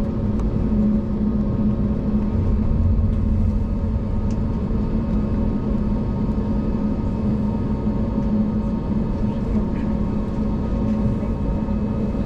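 Cabin drone of an Airbus A321-271neo with its Pratt & Whitney geared turbofan engines at idle as it taxis, heard from inside the cabin: a steady low hum with a strong low tone and fainter tones above it, with no thrust increase.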